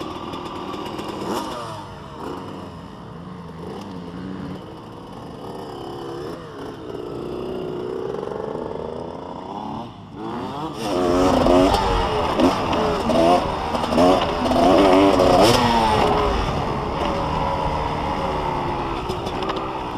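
Motocross dirt bike engines revving, the pitch climbing and dropping with the throttle. The engine noise gets much louder just before halfway through, with repeated quick rises and falls in pitch.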